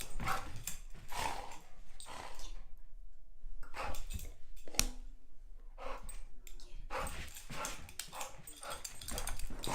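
Dog barking in a long, irregular string of sharp barks, excited by the mail carrier delivering boxes.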